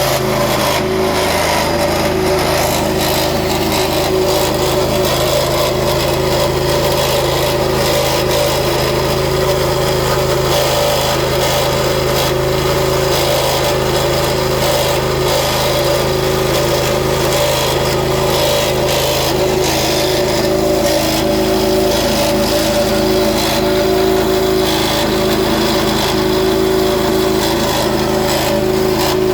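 Petrol pressure washer's small engine running steadily with no change in speed, making a weird noise that the owner has noticed since it came back from a service.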